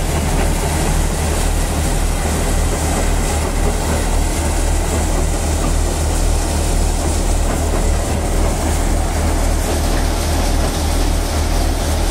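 Malwa tokari thresher running while threshing: a loud, steady machine noise with a deep hum underneath.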